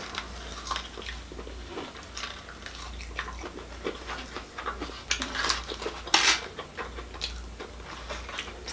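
Close-up eating sounds: chewing and mouth sounds, a fork clicking and scraping in a plastic takeout container, and the rustle of its paper liner, in scattered small clicks with two louder ones about five and a half and six seconds in.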